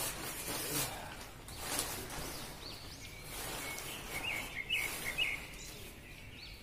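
Nylon fabric of an Eiger Recline pop-up shelter rustling and swishing as it is handled, in several brief brushes. Birds chirp in the background, with a run of short chirps in the second half.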